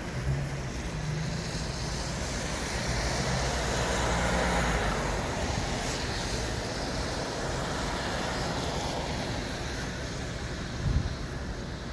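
City street traffic: a steady rush of passing vehicles, with one passing closer and louder about four seconds in. A brief low thump comes near the end.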